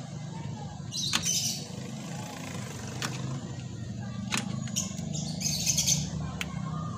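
Metal clicks and short rasping bursts of a wrench working on a drum brake backing plate, over a steady low hum.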